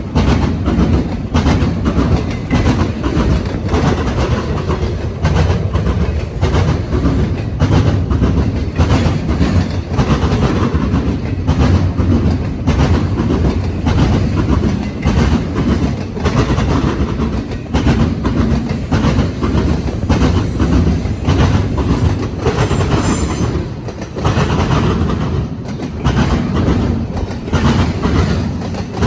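Freight train cars rolling across railroad diamonds, the wheels pounding the crossing frogs in a continuous rapid run of heavy impacts. A brief high wheel squeal comes about two-thirds of the way through.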